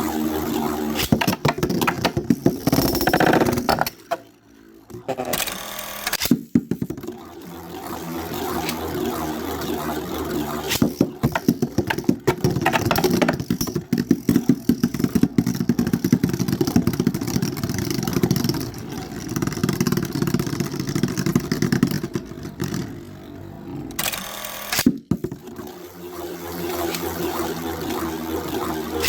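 Two Metal Fight Beyblades, Storm Pegasis 105RF and Storm Capricorne M145Q, spinning and clashing in a stadium: a steady whirring broken by many sharp clicks as the metal tops hit each other. The sound drops out briefly twice.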